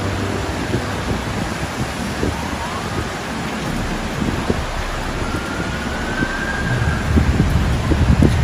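Thunderstorm wind and rain hiss steadily on the microphone, with low gusts swelling near the end. A faint siren rises in pitch and holds for about a second and a half, about five seconds in.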